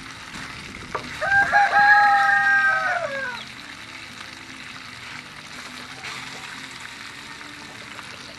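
A rooster crowing once, starting about a second in: one long call held steady, then falling in pitch at the end. Steady wind hiss runs behind it.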